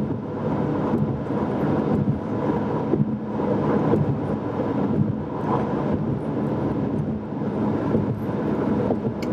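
Steady cabin noise of a 2015 Ford Mustang EcoBoost cruising at highway speed with the windows up: tyre and wind noise with a low hum from its turbocharged four-cylinder engine under light throttle.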